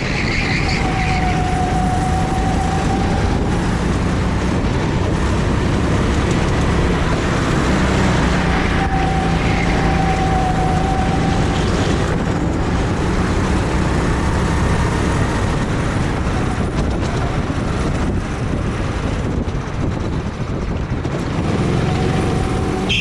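A go-kart engine running steadily, blended with a loud rushing wind noise.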